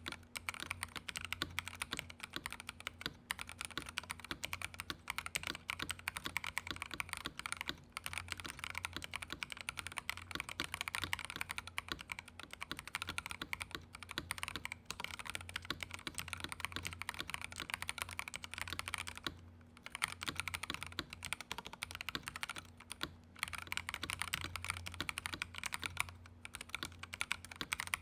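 Continuous fast typing on a Feker IK75 gasket-mounted 75% mechanical keyboard with lubed MMD Cream linear switches on a steel plate: a dense stream of key clacks with a few brief pauses.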